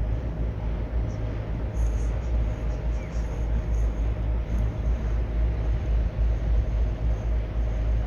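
Wind buffeting the microphone on a moving river ferry, a heavy uneven rumble, with the ferry's engine running steadily underneath.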